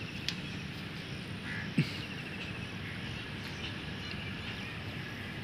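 Outdoor ambience beside still floodwater: a steady low background rumble, with a few short, rapid chirring trills from small creatures. A single sharp thump about two seconds in.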